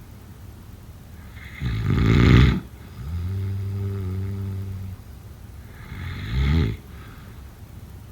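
Snoring: a loud, rattling snore on the in-breath about one and a half seconds in, then a low, steady tone on the out-breath for about two seconds, and a second, shorter snore near the end.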